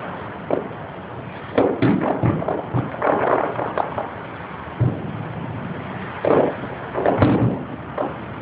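Aerial fireworks show bursting: an irregular string of bangs, about a dozen, with crackling pops between them.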